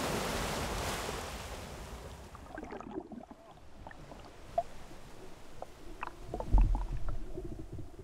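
Shallow seawater sloshing and gurgling, heard through a microphone at and then under the surface. A wash of surf at first gives way to muffled underwater clicks and gurgles, with a low thump about six and a half seconds in.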